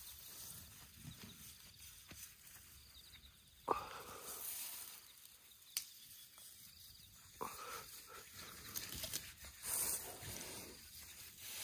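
Elephants grazing: grass rustling as it is pulled and torn up, with a few sudden sharper sounds, the loudest about four seconds in.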